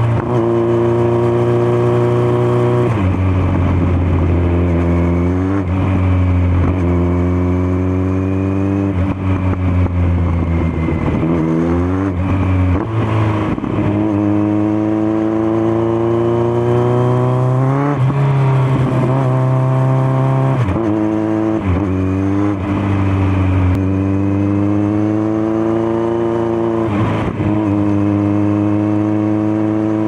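Kawasaki Z900's inline-four through an SC-Project S1 GP slip-on exhaust, ridden hard. The engine note climbs in pitch through each gear and drops sharply at every shift, over and over, with a few stretches where it falls away as the throttle closes.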